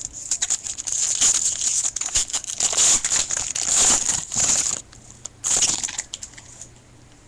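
Crinkling and rustling of trading-card packaging being handled, running for about five seconds, then a second short burst of crinkling a moment later.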